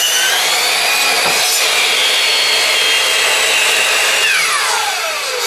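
Delta miter saw running at full speed and cutting through a wooden board, its motor giving a steady high whine. About four seconds in the whine falls steeply in pitch as the blade spins down after the trigger is released.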